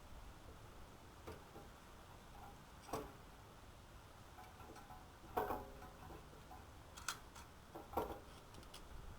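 Scattered light clicks and clanks of hand tools and brake parts being handled, about five over the stretch, the one about midway ringing briefly.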